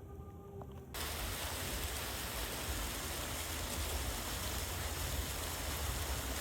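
Waterfall rushing: a steady, even noise of falling water that starts abruptly about a second in.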